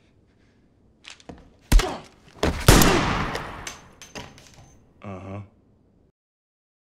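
Film fight sound effects: a couple of light knocks, a sharp hit, then a much louder impact that rings out and fades over about a second and a half. Near the end comes a brief low voice sound, like a grunt.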